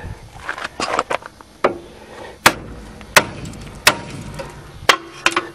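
Mini sledgehammer striking the steel steering knuckle of a 1995 Nissan 200SX to break the lower ball joint's Morse taper. A few lighter knocks come first, then four hard metallic blows less than a second apart, the last leaving a short ring, and the taper lets go so the ball joint separates without damage.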